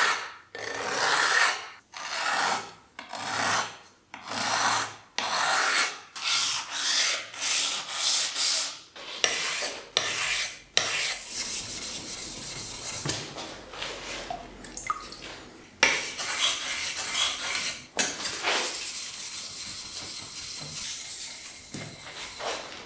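Abrasive scraping of a stone being rubbed back and forth over flat metal lapping plates, in separate gritty strokes about one a second. After about nine seconds it gives way to quicker, more continuous rubbing on a King Japanese waterstone, with an occasional sharp knock.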